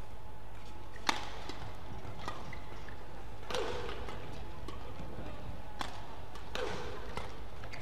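Badminton rackets striking a shuttlecock in a rally: sharp cracks every second or so, some louder than others, over a steady low hum of the hall.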